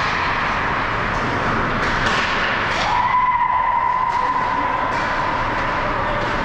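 Ice hockey game play: a steady scraping hiss of skates on the ice, with sharp clicks of sticks and puck now and then. About three seconds in, a single steady tone comes in and holds for two to three seconds.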